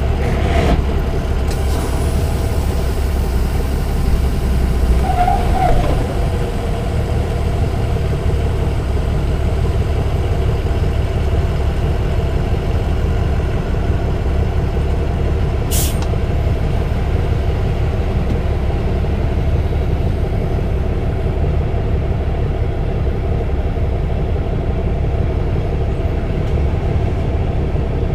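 Semi-truck's diesel engine idling steadily, heard from inside the cab, with a short sharp hiss of air about halfway through.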